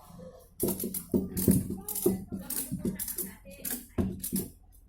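Rapid, irregular clattering and knocking of hard objects, over a faint steady low hum.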